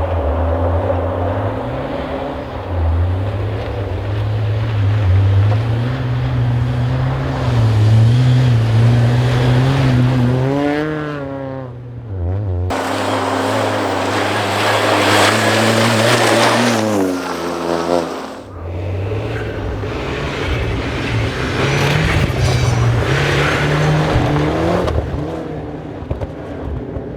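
Rally car engine on a snow stage, revving hard. Twice its pitch climbs steeply and then drops off sharply: once about eleven seconds in and again around seventeen seconds. Between these climbs it runs on at steady, high revs.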